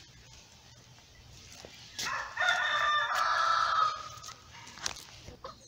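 A rooster crowing once: one call of about two seconds that starts about two seconds in. Short chicken clucks follow near the end.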